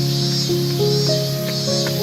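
Background instrumental music: held notes, each giving way to the next at a new pitch about every half second, with a steady low note underneath.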